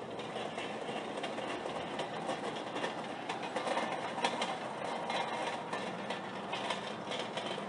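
A wheeled metal rack rattling and clattering as it is rolled across asphalt, over a steady mechanical drone.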